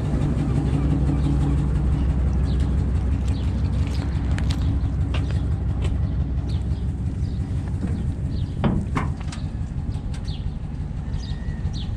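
Vehicle engine idling with a steady low hum that weakens in the second half, birds chirping over it, and two sharp knocks about nine seconds in.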